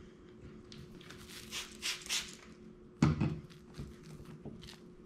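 Soft, wet whole wheat pizza dough being handled on a wetted countertop: sticky squelching and peeling sounds, then one thump about three seconds in as the dough hits the counter, followed by lighter pats.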